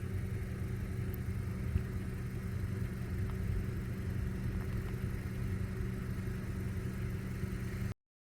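Car engine running with a steady low hum, which cuts off suddenly near the end.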